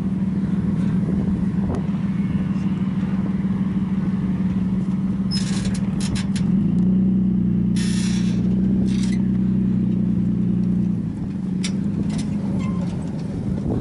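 Engine of a pickup truck towing a dune buggy through soft sand on a strap, running steadily and pulling harder for a few seconds in the middle, with brief rushes of hiss and a few sharp clicks over it.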